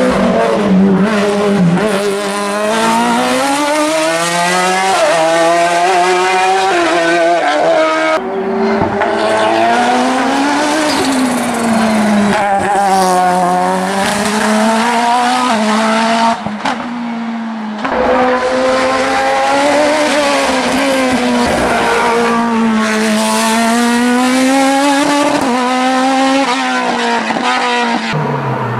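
Open-cockpit sports prototype race car's engine revving hard up through the gears and dropping in pitch on lift-off and braking for bends, over and over.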